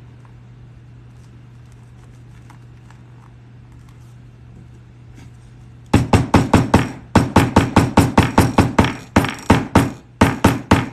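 A hammer rapidly tapping a metal leatherworking tool into thick leather, about five sharp strikes a second, starting about six seconds in with two brief pauses.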